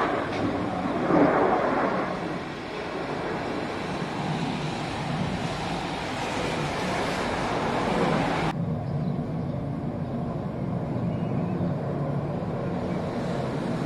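Jet engine roar from a fighter jet flying an airshow display, loudest in the first two seconds, then a steady rush. About eight and a half seconds in, the hiss cuts off suddenly, leaving a duller, lower rumble.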